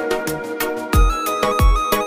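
Background music with a steady beat: a regular low drum thump with ticking hi-hats under a simple electronic melody.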